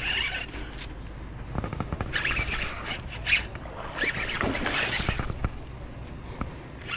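Baitcasting reel being cranked in short, uneven spurts, giving scratchy whirring and light clicks.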